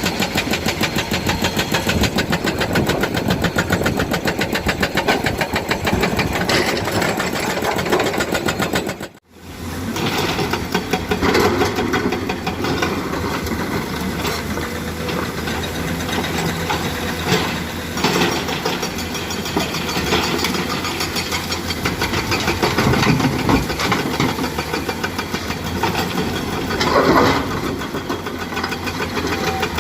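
Komatsu PC200 excavator's diesel engine running steadily as the machine works, with a short break in the sound about nine seconds in.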